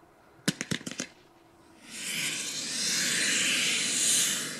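A girandola's ring of rocket drivers with 14 mm chokes lights: a quick cluster of sharp cracks about half a second in, then from about two seconds in a loud, steady rushing hiss as the drivers burn.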